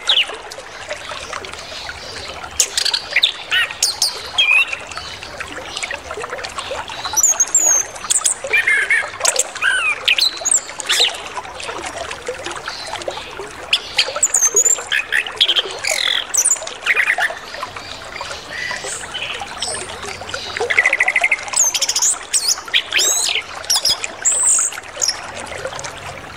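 Orange-headed thrush singing a varied, busy song of short whistled notes, slurred glides and quick trills, over a steady trickle of running water.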